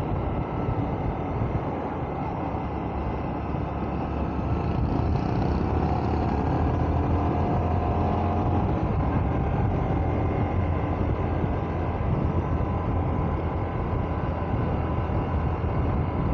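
Honda Varadero 125's small V-twin engine running steadily while riding, under a constant rush of wind on the microphone.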